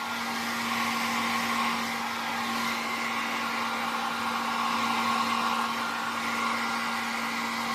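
Hair dryer blowing steadily: a continuous rush of air with a steady motor hum underneath.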